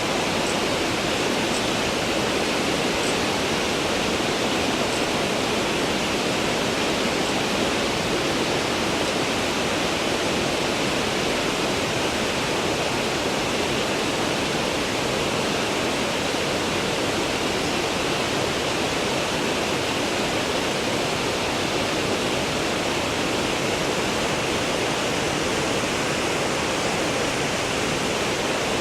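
Steady rushing of running water, an even unbroken noise, with a few faint high ticks in the first few seconds.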